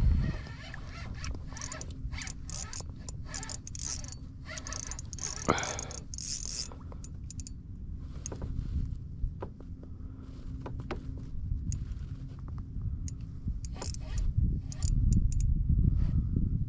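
Fishing rod and reel being worked while a hooked lake trout is fought, heard as scattered clicks and ticks, thickest in the first half, over a steady low rumble that grows louder near the end.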